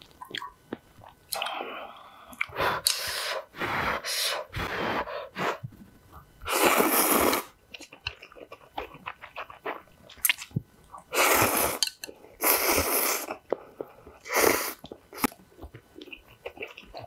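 A person slurping spicy instant ramen noodles in about six long, noisy pulls, with chewing and small wet mouth sounds between them.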